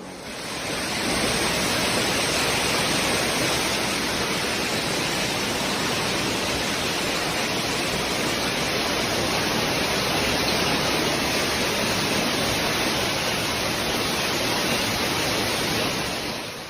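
Heavy rain pouring down in a steady, even hiss, fading in at the start and out near the end.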